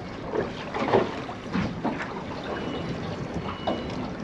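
Water lapping and slapping against the hull of a drifting boat in irregular surges, with wind on the microphone.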